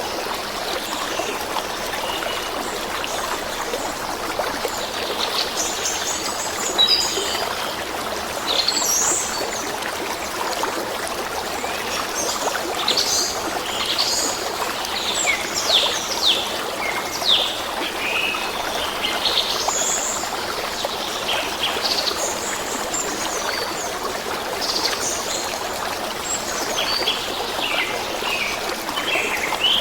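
Water running steadily in a stream, with many short, quick bird chirps over it, busiest from about six seconds in.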